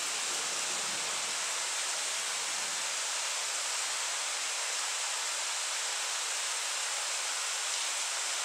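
Steady hiss of heavy rain falling during a thunderstorm. A faint low rumble dies away in the first second or so.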